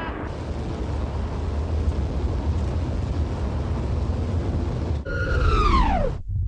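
Steady low rumble of a car on the road. About five seconds in, a pitched sound with several overtones slides steeply down in pitch for about a second and then cuts off suddenly, a slowing-down effect for time slowing.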